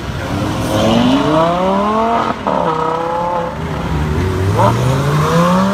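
Lamborghini V10 engine revving hard as the car accelerates away. Its pitch climbs for about two seconds, breaks off sharply at a gear change, dips, then climbs again.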